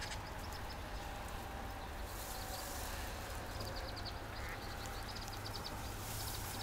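Outdoor ambience: a steady low wind rumble on the microphone, with faint, rapid, high-pitched chattering calls of small animals coming in several short runs.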